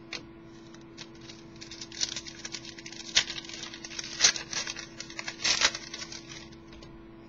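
Football trading cards being handled: a run of crisp rustles and small snaps as cards slide and flick against one another, loudest twice in the second half.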